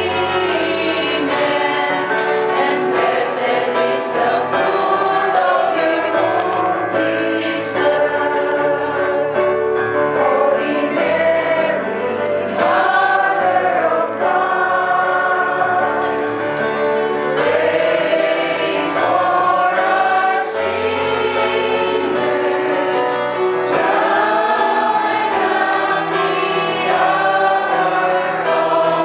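A choir of mixed voices singing a slow hymn in long held notes, with keyboard accompaniment.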